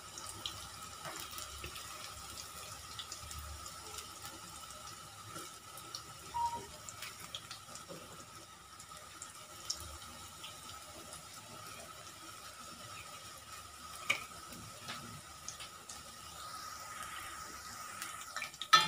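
Palak pakoda (spinach fritters) deep-frying in hot oil, a steady sizzling and bubbling, with a few short clicks.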